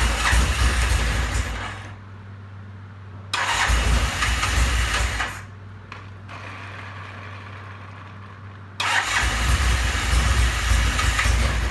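Vintage British motorcycle engine being started cold on its electric starter: three loud bursts of cranking and firing, each starting suddenly and lasting about two seconds, the last running on past the end. A low steady hum fills the pauses between them.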